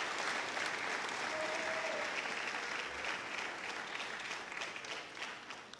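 Audience clapping, a crowd of many hands applauding steadily and then dying away near the end.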